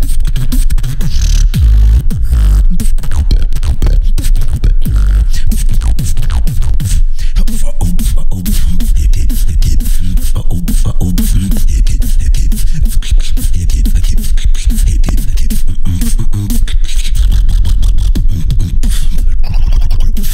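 Freestyle beatboxing into a handheld microphone cupped at the mouth: a fast, unbroken run of deep booming bass sounds and dense sharp clicking strikes.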